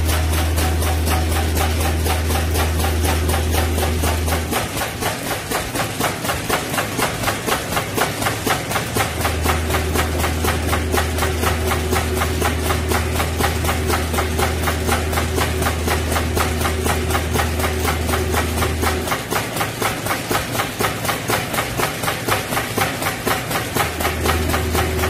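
Automatic walnut-cake packaging machine running: its feeder and conveyor mechanism make a rapid, even clatter of several knocks a second. Under it a low machine hum cuts out twice and comes back.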